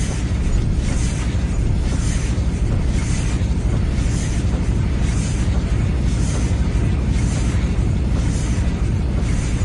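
Industrial machinery running with a heavy, steady low rumble and a regular hissing pulse about once a second.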